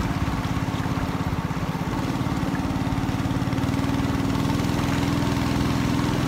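A small boat's engine running steadily, its note picking up slightly about two seconds in.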